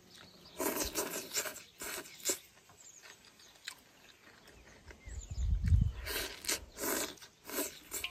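A person slurping noodles and eating, in two runs of noisy sucking slurps, about half a second in and again about six seconds in, with a low rumble just before the second run.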